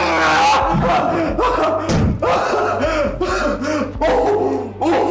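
Agitated voices shouting and crying out, overlapping, over a low steady drone.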